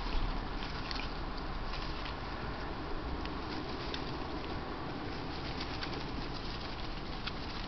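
Steady hiss with scattered soft ticks and rustles as red fox cubs scuffle and play in dry grass.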